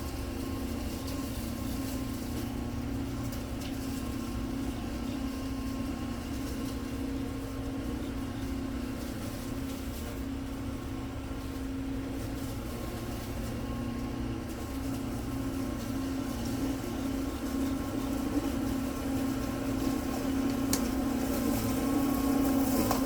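Greenworks cordless electric lawn mower running, its motor and blade making a steady hum, getting louder over the last few seconds.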